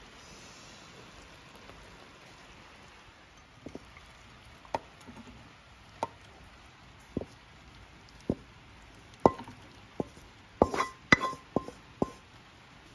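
A spatula and wok knocking and clinking while cooked egg-and-tomato chilli dip is scraped out of the wok onto a ceramic plate. A few sharp knocks come about a second apart, then a quick run of ringing clinks near the end.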